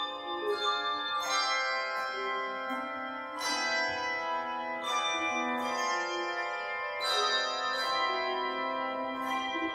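A handbell choir ringing a slow hymn tune: chords of bells struck together and left to ring, overlapping one another, with a fresh struck chord every second or two.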